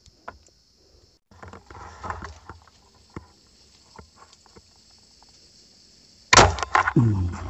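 Faint rustling and small clicks of a hand-made fishing crossbow being handled among swamp plants, over a steady high hiss. About six seconds in comes a sudden loud sound, followed by a short falling, voice-like tone.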